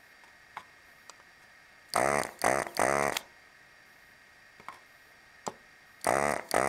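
Hakko FR-300 desoldering gun's built-in vacuum pump buzzing in short bursts as the trigger is pulled, sucking molten solder from a resistor's joints. There are three quick bursts about two seconds in and more starting near the end, with a few faint clicks in between.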